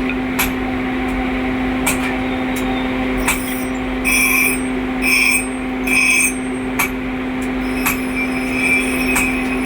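Forging workshop: a machine hums steadily under scattered sharp knocks of metal being struck, with three short harsh metal scrapes about four, five and six seconds in.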